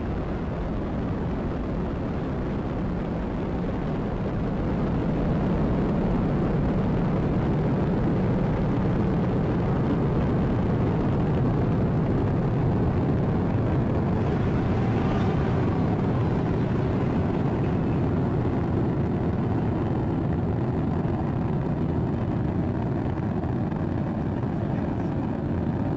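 Falcon 9 first stage's nine Merlin engines during ascent, a steady, dense, low rumble that grows a little louder about five seconds in.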